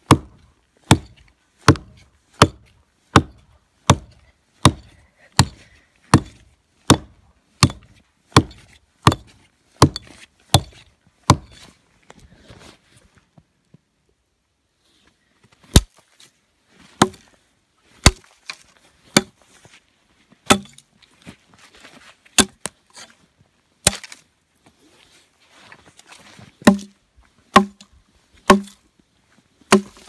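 Hatchet chopping into a tree trunk in sharp, loud, wooden whacks: a steady run of strokes about one and a half per second for the first dozen seconds, then a short pause, then slower, irregular chops.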